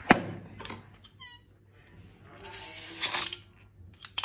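Rubber balloon being handled: a sharp click near the start, a short run of wavering squeaks about a second in, then a louder rubbing rustle.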